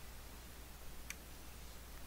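A single computer mouse click about halfway through, over a faint steady low hum.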